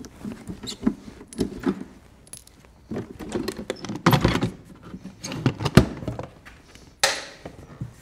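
Hard motorcycle saddlebag being handled and taken off the bike: scattered clicks, knocks and light rattles from its lid and latches, with a sharp knock about six seconds in.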